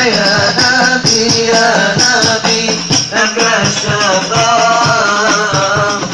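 Hadrah al-Banjari devotional music: a man sings a drawn-out, ornamented Arabic melody over fast, interlocking rebana frame-drum strikes with jingling.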